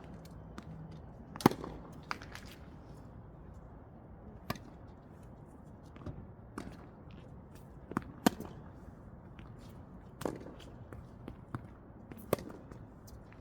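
Tennis balls being hit back and forth in a drill: sharp racket-string pops and ball bounces about every one to two seconds, the loudest about a second and a half in and again near eight seconds.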